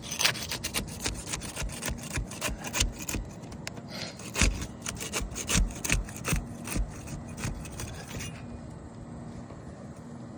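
Asphalt roof shingle being scraped, torn and pried loose to remove a damaged shingle: a busy, irregular run of scraping and cracking that stops about eight seconds in.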